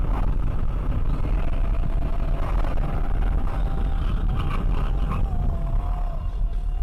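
Road and engine noise heard from inside a moving car through a dashcam microphone: a steady low rumble with tyre and wind noise. A faint thin wavering tone runs through the middle.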